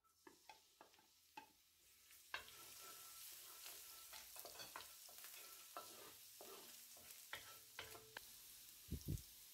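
Finely chopped vegetables dropped into hot oil in a wok and sizzling, the sizzle building over the first couple of seconds. A wooden spoon stirs and scrapes them with scattered taps against the pan, and two low knocks come near the end.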